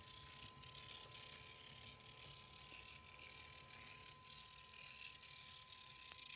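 Kato N-scale EF64 1000-series model locomotive running, a faint steady mechanical running noise from its motor and gear drive: the abnormal noise that Kato's repair did not cure.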